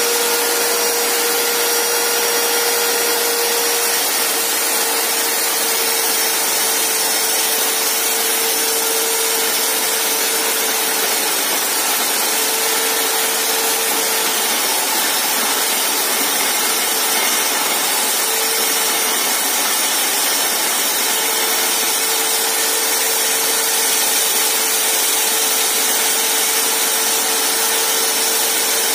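Electric diamond core drill running steadily on its stand, the bit grinding a core hole into a concrete floor slab. The motor keeps up a steady whine that dips and returns at times.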